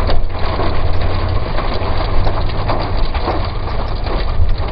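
Rain hitting a car, many small scattered taps over the steady low rumble of the car's engine and road noise.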